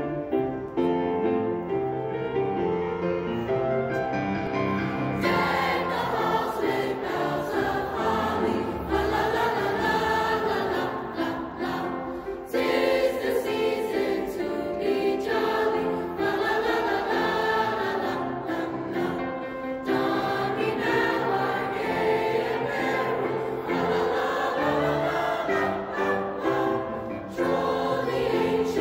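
A middle-school mixed choir of boys' and girls' voices singing together in parts, in the reverberant space of a church. The sound grows fuller about five seconds in.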